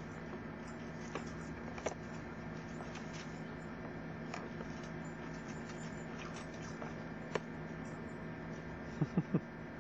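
A puppy and a person's flip-flops scuffing and crunching on gravel during play, with a few sharp clicks over a steady low hum. Three short, sharp pitched sounds come in quick succession near the end.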